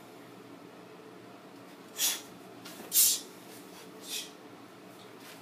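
Three short, forceful breaths out, about a second apart, the middle one loudest, as a karate student snaps through kata techniques.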